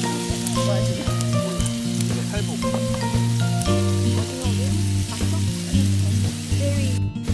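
Pork belly and beef steaks sizzling on grill pans, a steady hiss, under background music with a bouncy bass line. The sizzling cuts out for a moment near the end.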